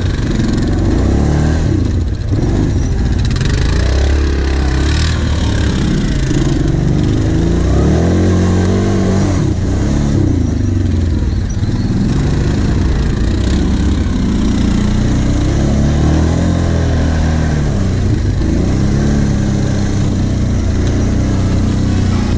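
Quad bike (ATV) engine heard from on board, revving up and falling back again and again as it rides over sandy dips and mounds.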